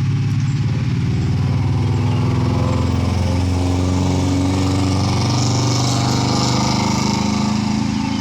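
Large diesel vehicle engine running steadily at close range, a low drone whose pitch shifts slightly partway through.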